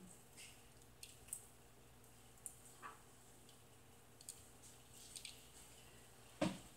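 Near silence in a small room, with faint scattered clicks and one short, louder sound just before the end.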